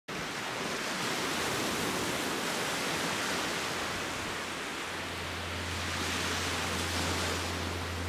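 Gentle surf washing onto a sandy beach: a steady rush of water noise that swells and eases every few seconds. A low steady hum comes in about five seconds in.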